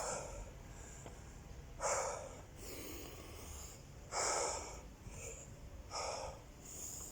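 A man breathing hard, out of breath after a run of burpees: three loud breaths about two seconds apart.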